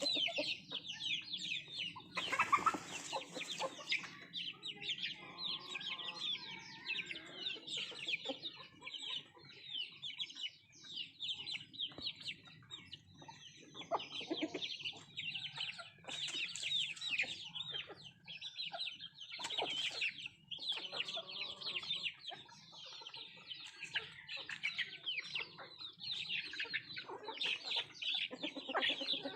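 A flock of country chickens (nattu kozhi) clucking and chirping while they feed: a continuous stream of short, high chirps with lower clucks mixed in. A brief louder burst of noise comes about two and a half seconds in.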